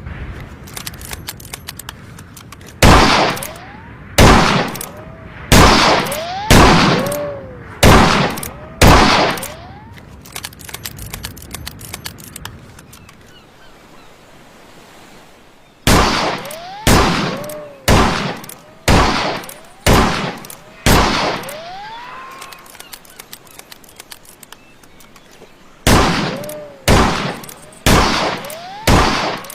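Ruger Redhawk revolver being fired in three strings of about one shot a second: six shots, a pause, six more, a pause, then four more near the end. Faint clicks and handling noise come between the strings.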